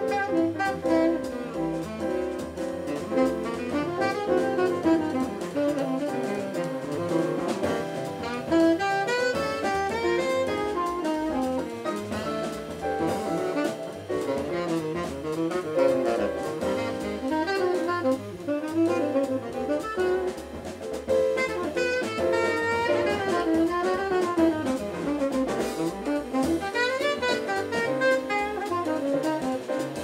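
Live big-band jazz: a saxophone solo of fast, running lines over a rhythm section of double bass and drums.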